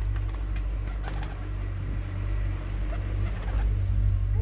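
White birds cooing in a pigeon-like way, over a loud low rumble that stops suddenly at the very end.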